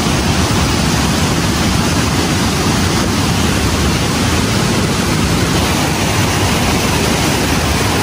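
Steady rushing roar of water falling from a high waterfall, an even noise heaviest in the low end.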